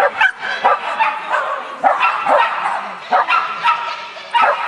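A dog barking repeatedly in short, sharp, high barks, about two to three a second.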